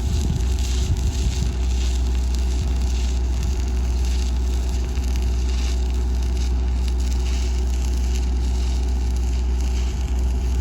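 Stick welding arc crackling and sizzling steadily over a constant low hum, as threadolet fittings are welded onto a steel water main.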